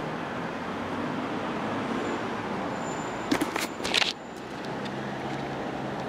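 Steady low rumble and hiss of background noise, with a brief clatter of knocks about three and a half seconds in. No bells are ringing.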